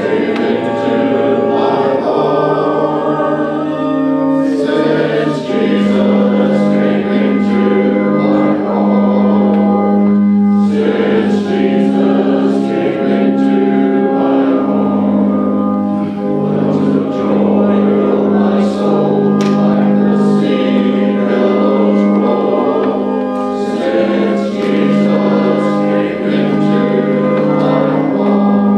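A group of voices singing a gospel hymn together, with sustained organ accompaniment.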